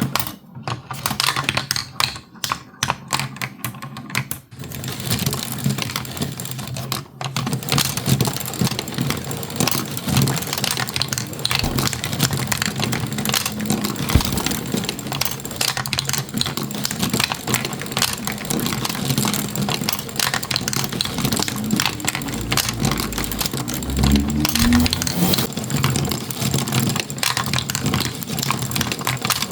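Marbles clattering down a marble run: a dense stream of rapid clicks and rattles, broken by short gaps in the first few seconds and then continuous.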